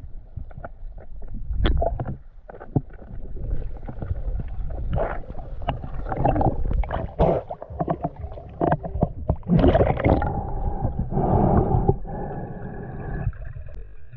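Water gurgling and sloshing around a camera moving underwater and breaking the surface, with scattered small clicks and knocks over a low rumble. Two louder surges of splashing come past the middle.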